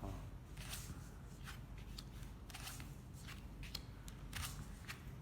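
Playing cards being drawn from a baccarat shoe and flipped onto the table: a faint, irregular series of short swishes and snaps.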